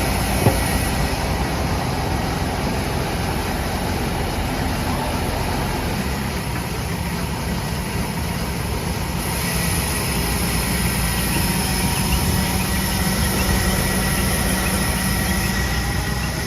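ACE AX 124 backhoe loader's diesel engine running steadily, a constant low drone, with a single short click about half a second in.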